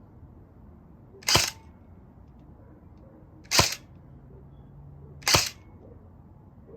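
Crosman Pulse R76 electric airsoft gun firing single shots on semi-auto: three sharp snaps about two seconds apart.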